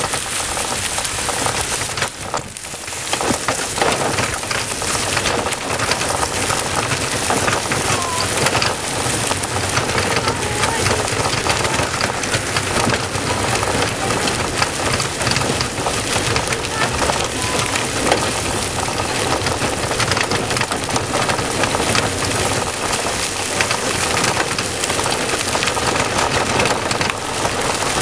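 Road noise of a recumbent cargo bike and its trailer rolling fast over rough asphalt: a steady rush with constant crackling and rattling, picked up close to the wheels. The level dips briefly about two seconds in.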